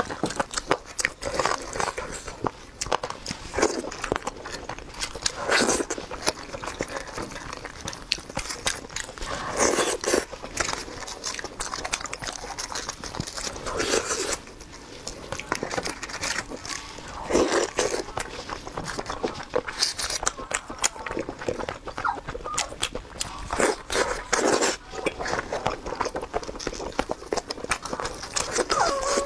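Close-miked eating sounds: a steamed chicken torn apart by gloved hands and chewed, with many irregular wet clicks and smacks.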